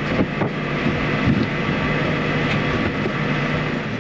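Lorry's diesel engine running steadily as the truck moves slowly, a constant low hum with noise from the moving vehicle.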